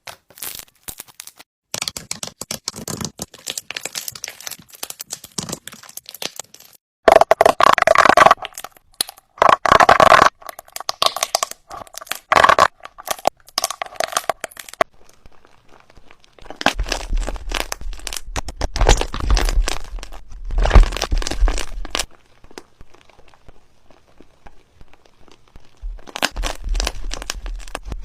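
Slime being squeezed and worked by hand, giving bursts of crackling, popping and crinkling sounds.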